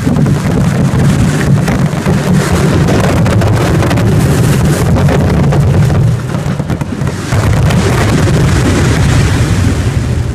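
Fireworks fired from mortar tubes at very close range in a rapid, near-continuous barrage, many launches and bursts running together into a loud rumble with countless cracks. The barrage slackens briefly about six seconds in, then builds again. This is the show's closing volley.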